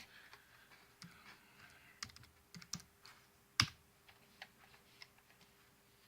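Irregular taps and clicks of typing on a computer keyboard, with one sharper click about three and a half seconds in.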